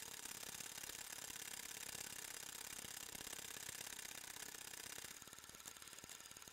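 Film projector running: a steady, rapid mechanical clatter over a hiss, dropping slightly in level about five seconds in.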